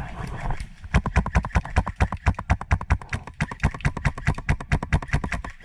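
Airsoft gun firing rapidly, a fast even string of sharp shots at about ten a second, starting about a second in with a brief break partway through.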